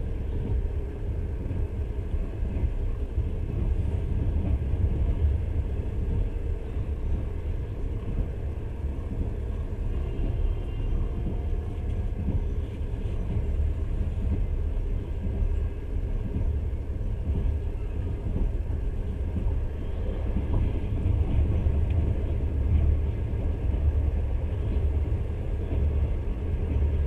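Moving passenger train heard from inside the carriage: a steady low rumble of the wheels running on the rails.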